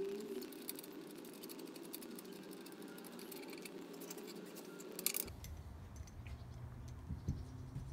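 Faint clicks and light rattles of a throttle cable being handled and fed along a lawn edger's steel frame, with a low hum in the background from about five seconds in.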